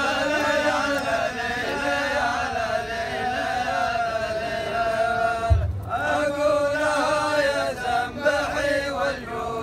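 A row of men chanting a rajaz verse together in long, drawn-out notes. The chant breaks briefly for breath just before six seconds in, where a single low thump sounds, then resumes.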